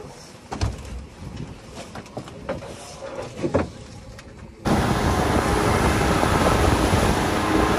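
A few light knocks on a boat's deck, then, about four and a half seconds in, a sudden jump to the loud, steady rush of a boat running at speed: engine, wind and churning wake.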